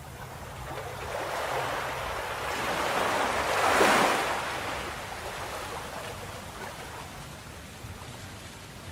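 Ocean surf: one wave builds up and breaks, loudest about four seconds in, then fades away.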